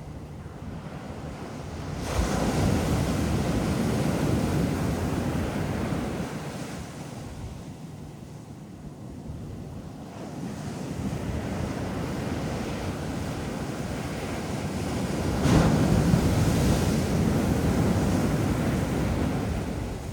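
Ocean waves breaking on a beach: two crashes, one about two seconds in and another about fifteen seconds in, each hitting suddenly and then washing out over several seconds.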